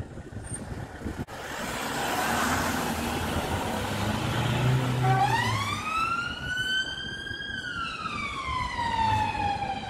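Police car siren in a slow wail: about halfway in it rises in pitch for a couple of seconds, then falls for a couple of seconds and begins to rise again, over a steady noisy background.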